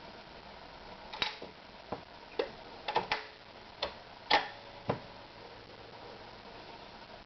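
Privileg TopStar 796 sewing machine being handled: a string of sharp, irregular mechanical clicks and knocks, about nine over four seconds, rather than the machine running.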